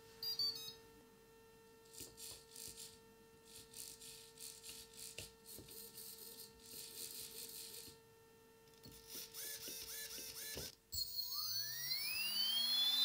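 A short beep at the start. Then small RC hobby servos whir in short bursts as the joysticks drive them back and forth. About eleven seconds in, a brushless outrunner motor run by an ESC spins up with a rising whine that levels off into a steady high whine.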